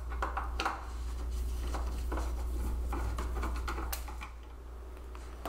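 Phillips screwdriver and hands working the sheet-metal bottom plate off a vintage Sansui stereo receiver: scattered metallic clicks, taps and scrapes as the screws come out, over a steady low hum.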